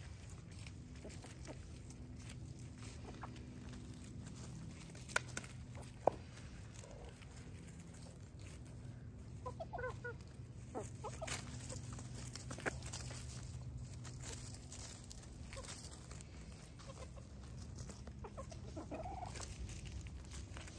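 Chickens clucking, a few short calls now and then, over a steady low hum, with two sharp clicks about five and six seconds in.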